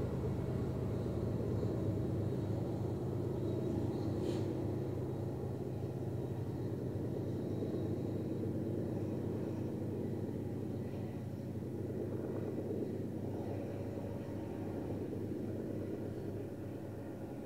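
Loaded coal hopper cars of a freight train rolling slowly past on an upgrade: a steady low rumble of wheels on rail that slowly gets quieter, with a brief high squeak about four seconds in.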